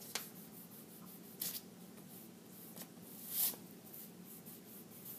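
An eraser rubbing on drawing paper in four short scrubbing strokes; the longest and loudest is about three and a half seconds in.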